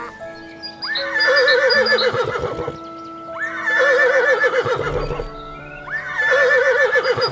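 Horse whinnying three times, about two and a half seconds apart, each call shaking in pitch, over background music.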